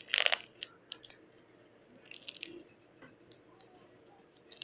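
Slime being squished and poked by hand: a dense burst of crackling pops just after the start, a few single pops over the next second, and another short crackling burst about two seconds in.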